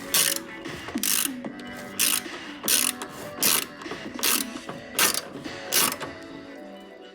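Ratchet wrench being cranked in short strokes, eight rasping clicks of the pawl about every three-quarters of a second, as bolts are tightened during assembly of a wall-mounted folding squat rack. Background music plays underneath.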